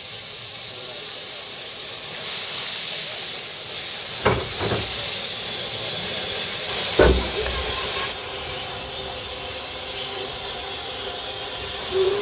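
Narrow-gauge steam locomotive hissing loudly as it vents steam, in surges, easing off about two-thirds of the way through. A few short knocks come about four and seven seconds in.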